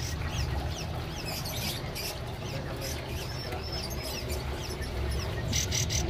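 Many caged songbirds chirping, short high chirps scattered throughout over a low steady hum, with a quick run of sharp chirps near the end.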